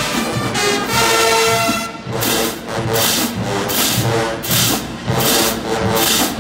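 Marching band music: the brass section holds full chords, then about two seconds in the percussion takes over with a run of rhythmic strikes, two to three a second.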